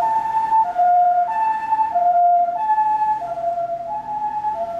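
Ambulance siren sounding the two-tone hi-lo pattern used by Japanese ambulances. It alternates evenly between a high and a low note, each held about two-thirds of a second, going through about three and a half hi-lo cycles.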